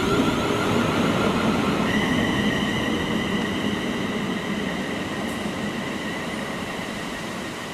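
Passenger train running through on the main line, its rumble fading as it moves away, with a steady high-pitched whine that comes in about two seconds in.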